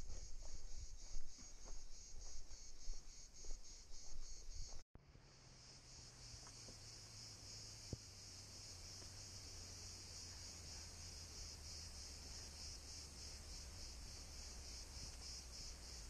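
Cicadas calling in a steady, high chorus that pulses several times a second. Over the first five seconds there are irregular crunching steps on rock; after a brief break in the audio the insects carry on over a faint low rumble.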